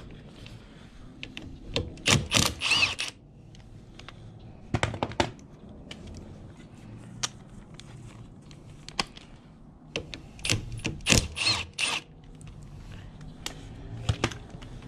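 Milwaukee cordless power tool with a 10 mm socket running in two short rapid clattering bursts, about two seconds in and again near eleven seconds, backing out the bolts of a motorcycle's front sprocket cover. Scattered light metal clicks of tools and small parts in between.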